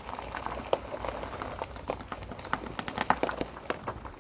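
Irregular light clicks and crunches, scattered unevenly, with the sharpest one about three seconds in.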